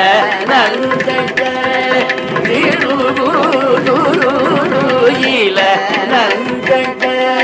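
Carnatic classical music in raga Dhenuka: a melodic line with continuous sliding, wavering ornaments over steady mridangam strokes.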